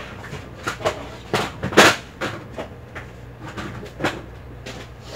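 Irregular knocks and clatter of household objects being handled and set down, a dozen or so, the loudest a little under two seconds in.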